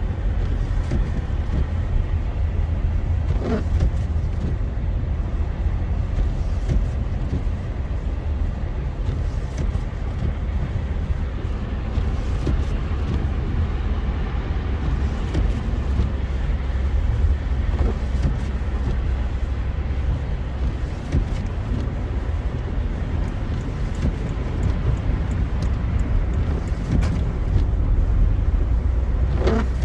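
Steady road noise from a car driving on a snowy highway, heard inside the cabin: a continuous low rumble of engine and tyres. Two brief, higher sounds stand out, one a few seconds in and one near the end.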